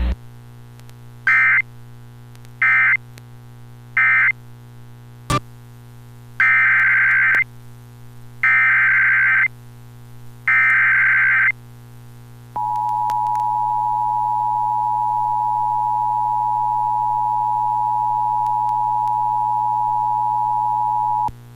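Emergency Alert System data and alert tones: three short screeching SAME data bursts (the end-of-message code) close off one alert, a click, then three longer SAME header bursts announce the next, followed by the steady two-tone EAS attention signal held for about nine seconds. A low mains hum runs under it all.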